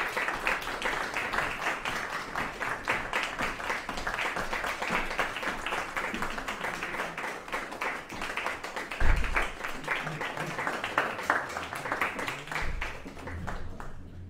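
A small audience applauding steadily, the clapping dying away near the end. There is a single low thump about nine seconds in.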